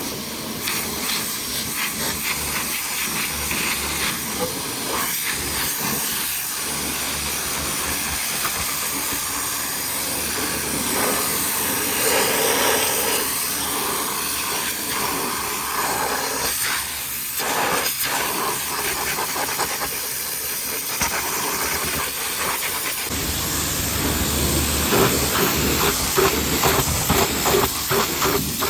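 High-pressure washer spraying a jet of water onto a truck, a steady loud hiss. About two-thirds through the sound changes and gains a low rumble.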